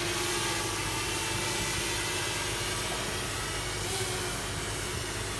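Walkera Runner 250 quadcopter's four brushless motors and propellers buzzing steadily overhead, their pitch drifting slightly with throttle. Wind rumbles on the microphone.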